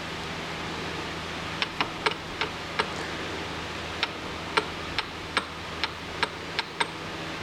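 Metal lathe running with a steady hum, overlaid by about a dozen sharp, irregularly spaced ticks.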